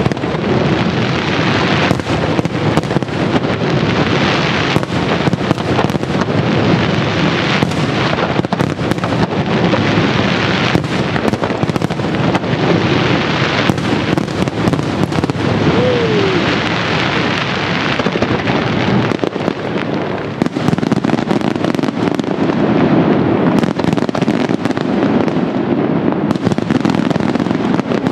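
Di Matteo fireworks display at full intensity: a dense, unbroken barrage of shell bursts and bangs.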